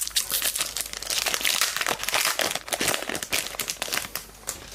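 Select Footy Stars trading-card pack wrapper crinkling as it is handled and opened: a dense run of crackles that eases off near the end.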